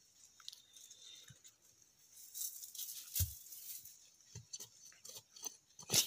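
Dry soil being scraped and dug out of a hole around sweet potato roots: scratchy crunching with scattered clicks, and one dull thump about three seconds in.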